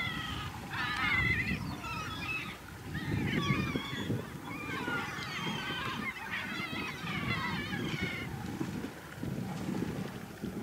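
Gulls calling, a run of wavering harsh cries repeated in quick clusters that stop about eight seconds in, with a low rumble underneath.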